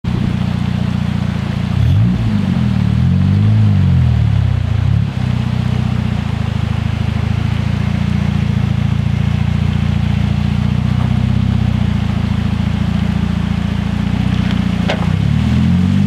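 Car engine running steadily at low revs, a low hum, with a single sharp knock near the end.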